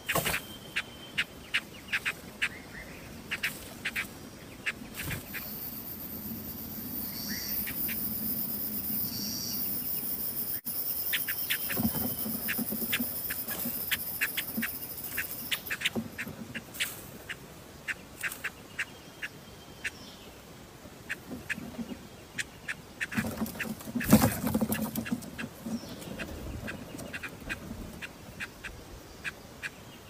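Silver-eared mesia nestlings begging from the nest, a run of short sharp chirps a few times a second that come and go. A steady high hiss runs through the middle stretch, and a louder burst of noise comes near the end.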